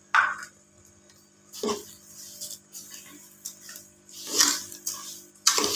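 A metal spoon scraping and stirring granulated sugar into dry broken-wheat daliya in an aluminium pot. It comes as a few short, separate scrapes rather than continuous stirring.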